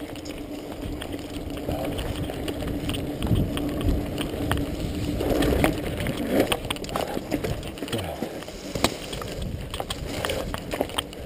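Mountain bike rolling over a rough dirt trail: the frame and chain rattle and click irregularly over bumps above a continuous tyre rumble and a steady hum.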